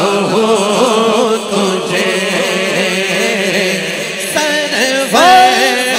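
A man singing a naat through a microphone and PA loudspeakers, drawing out long wavering melismatic notes. About four seconds in, a new phrase begins with an upward slide in pitch.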